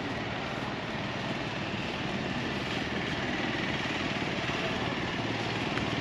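Steady outdoor street noise with a motor scooter's small engine running nearby, growing slightly louder toward the end.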